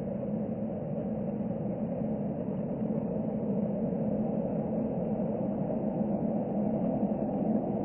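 Rolls-Royce Trent XWB turbofans of an Airbus A350-900 running at low taxi thrust as the airliner turns on the runway: a steady low hum with a faint steady tone, slowly growing louder.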